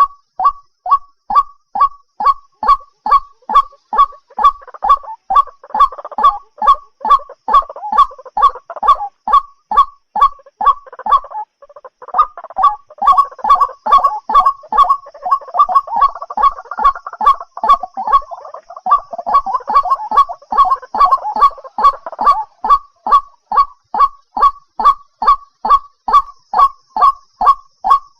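White-breasted waterhen calling: a loud, fast series of short, slightly falling notes repeated about two and a half times a second. Through the middle stretch the notes thicken into an overlapping chorus of calls, with a brief break about eleven seconds in.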